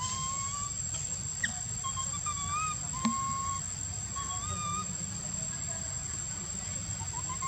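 Baby monkey crying in a series of short, thin, whistle-like coos, some wavering up and down, over a steady high-pitched hum.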